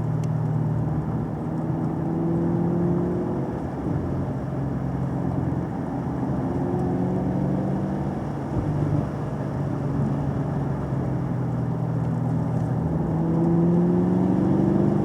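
Car engine running under load as it drives, its pitch rising and falling as it speeds up and eases off, over steady road and tyre noise.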